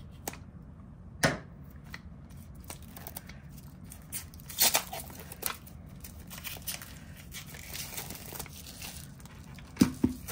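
Plastic shrink-wrap being torn and peeled off a boxed oracle card deck. It crinkles throughout, with several sharper tearing snaps.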